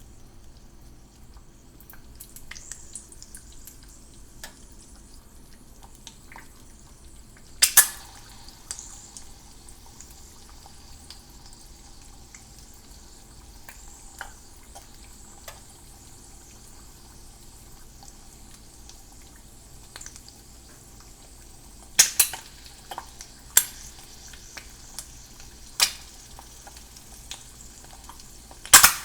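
Egg frying in a T-fal non-stick pan: a faint steady sizzle broken by sharp pops of spattering fat, one loud pop about eight seconds in and several more in the last seven seconds.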